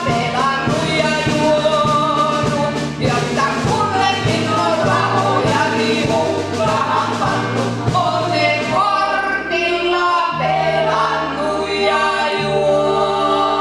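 A woman singing a song into a microphone over instrumental accompaniment with a steady beat; about nine seconds in the beat stops and the accompaniment holds long notes under the voice.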